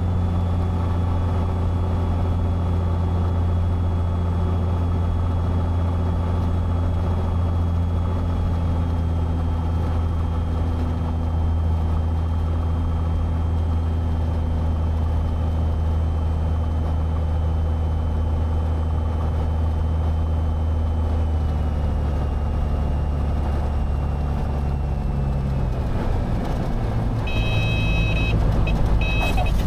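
A Cessna 182's six-cylinder piston engine and propeller running steadily, heard inside the cabin, with the engine note shifting lower about two-thirds of the way through as power comes off for the flare. Near the end a high pitched horn sounds in short bursts at touchdown, typical of the stall warning horn during a landing flare.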